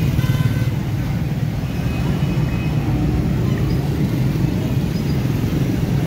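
Street traffic: a steady low rumble of vehicle engines from passing cars, motorcycles and auto-rickshaws.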